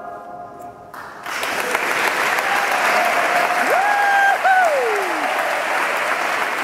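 The final sung chord of a chamber choir fades away in a reverberant church. About a second in, the audience breaks into steady applause. Partway through, one long whoop rises, holds and falls away.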